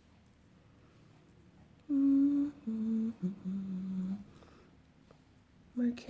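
A woman humming a tune, a few held notes stepping down in pitch, starting about two seconds in.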